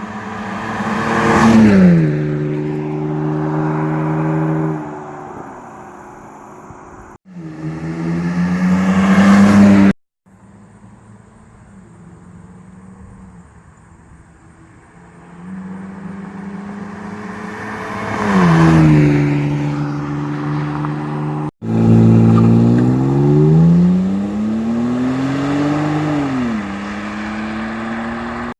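BMW E39 530i's M54 3.0-litre straight-six with the muffler deleted, in several short clips. The car accelerates and drives past, loudest as it passes with the pitch dropping after. In between it pulls hard with the pitch climbing, and it is revved up and let fall back.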